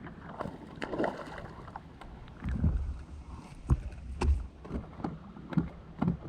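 Irregular knocks and thumps on a plastic fishing kayak, several of them heavy low thuds, mixed with short clicks.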